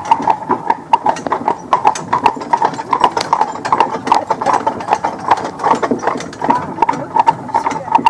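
Hooves of a pair of buggy horses clip-clopping on a paved road at a trot, a quick, even run of clacks, several a second.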